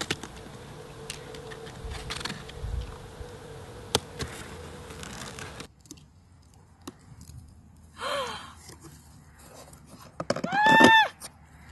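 A knife cutting and scraping through packing tape on a cardboard box, with scattered clicks and rustles. Near the end comes a short, loud, high-pitched squeal that rises and then falls.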